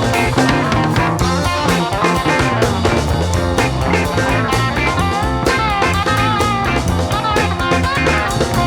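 Instrumental stretch of early-1970s psychedelic rock: a lead guitar line with bending notes over bass guitar and drums.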